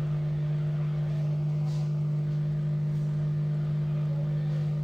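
Steady low electrical hum with a few overtones from the repair-bench equipment, running unchanged while the charging port is desoldered, with one faint tick about two seconds in.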